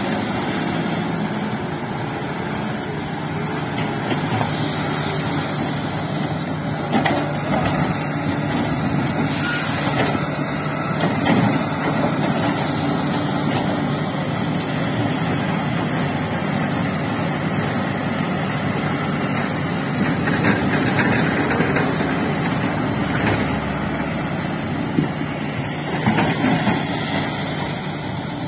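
Heavy diesel engines of an excavator and a dump truck running steadily under work, with occasional clanks of the bucket and machinery. About nine seconds in there is a short hiss of air from the truck's air brakes.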